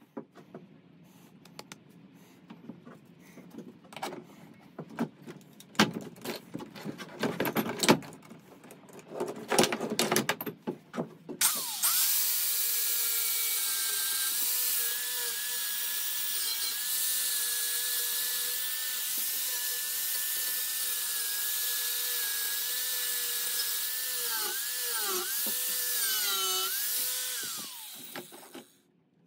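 Knocks and clicks of handling at a bench vise for about eleven seconds. Then a DeWalt angle grinder with a wire cup brush starts and runs steadily, wire-brushing a brass casting. Its pitch dips several times under load near the end before it is switched off and winds down.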